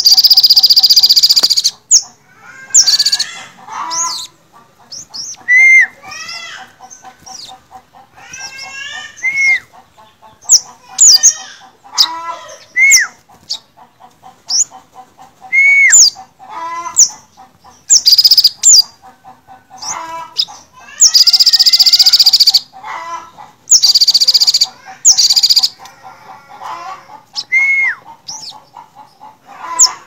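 Male olive-backed sunbird (sogon) singing. Short, sharp, high chirps and trills come in quick succession, broken several times by loud, high buzzy trills about a second long.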